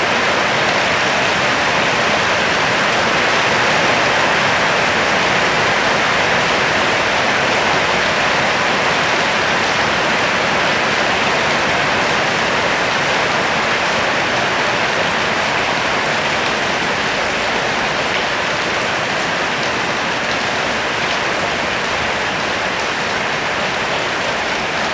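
Steady hiss of rain falling and splashing on surfaces, even and unbroken throughout.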